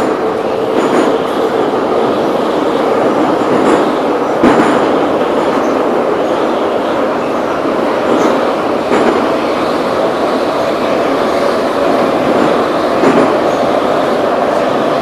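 Moscow Metro train of Ezh-3/Ezh-6/Em-508T cars running between stations, heard from inside the car: a loud, steady rumble of wheels and running gear with a faint whine, and a few sharp knocks from the wheels over rail joints, the loudest about four and a half seconds in.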